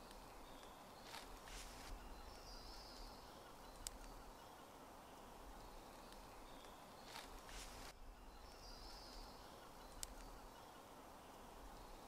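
Near silence: faint woodland ambience with a few soft, distant bird chirps and a couple of light clicks.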